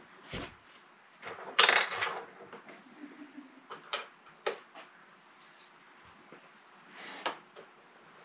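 Clicks, taps and knocks of an air rifle and small hand tools being handled on a workbench. There is a louder clatter about a second and a half in, then a few sharp single clicks around four seconds in and again near the end.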